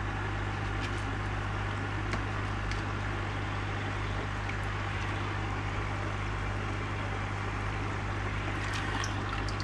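Aquarium pump and filter equipment running steadily: a low, even electrical hum with water trickling, and a few faint ticks.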